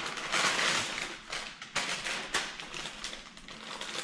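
Paper burger wrapper rustling and crinkling as a fast-food burger is unwrapped, loudest in the first second, then a scatter of lighter crackles.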